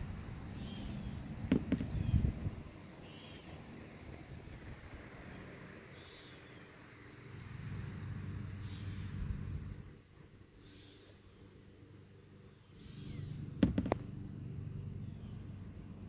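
Steady, high-pitched drone of a summer insect chorus. A low rumble swells and fades a few times, and sharp knocks come about two seconds in and twice more near fourteen seconds.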